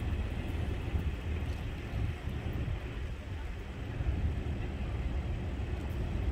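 Outdoor street background noise: a steady low rumble with no distinct events.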